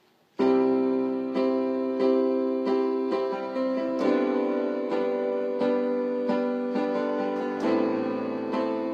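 Piano music starting suddenly about half a second in: an instrumental intro of chords struck at a steady pace of roughly one a second.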